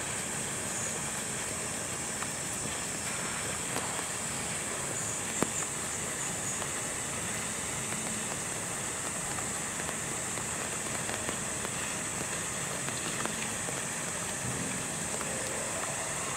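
Steady rain falling, an even hiss with a few faint ticks and one sharp tick about five seconds in.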